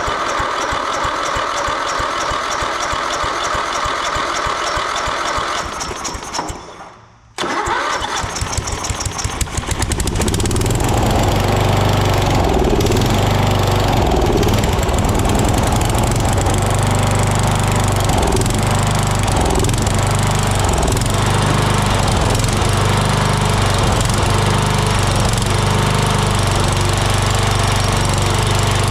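1985 John Deere 111 riding mower being cranked on its electric starter, pausing briefly, cranking again, then catching about ten seconds in and running steadily. The mower has been hard to start with a fuel-supply problem traced to its diaphragm fuel pump and a loose, unclamped fuel line.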